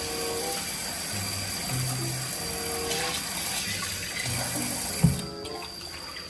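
Kitchen tap running into a metal pot while rice is rinsed by hand, over background music of short held notes. A single sharp knock comes about five seconds in, after which the rush of water drops.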